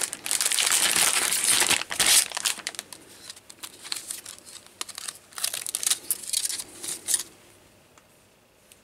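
Plastic packaging bag crinkling as a reel of LED strip is unwrapped: dense crinkling for about two seconds, then short scattered crinkles that stop about a second before the end.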